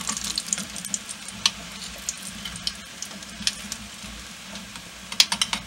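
Bannock dough frying in oil in a saucepan: a steady sizzling hiss with scattered crackling pops, and a quick run of sharp clicks near the end.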